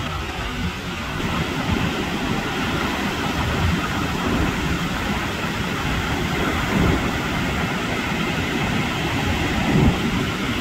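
Wind buffeting the microphone over the steady wash of breaking surf, with a few louder gusts.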